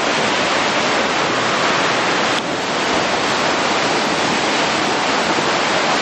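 Steady, loud rush of falling water from Urami Falls, a waterfall close by.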